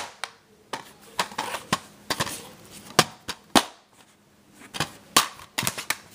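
Plastic DVD case being handled on a wooden tabletop: a string of sharp clicks and knocks as it is turned over and its hinged cover is snapped open.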